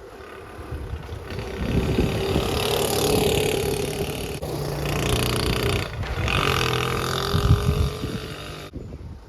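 Honda C70's small single-cylinder four-stroke engine running as the bike is ridden, with wind noise, in short stretches broken by abrupt cuts. The engine pitch holds steady, then shifts between stretches.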